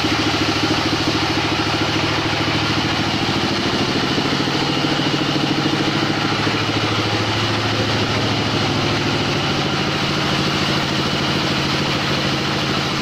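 Sawmill engine running steadily with an even, low pitched hum.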